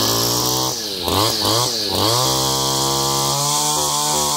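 Chinese-made two-stroke brush cutter engine revved on the throttle: several quick rising-and-falling blips, then held at high revs for about two seconds near the end.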